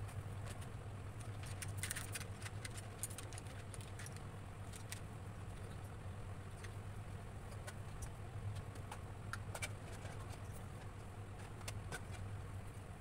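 Light, scattered clicks and scrapes of a pencil and a clear plastic ruler being handled on drawing paper, over a steady low hum.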